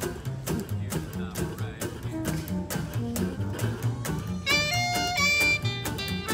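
Small acoustic street band playing jazz: an upright double bass walks under a steadily strummed acoustic guitar, and a wind instrument comes in with a melody about four seconds in.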